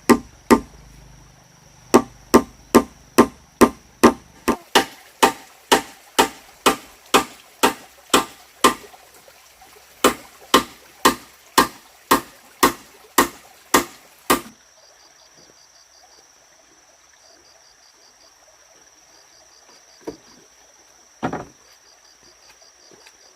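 Wood being chopped with even, regular strokes, about two to three a second, with two brief pauses, stopping about 14 seconds in. Two lone knocks follow near the end.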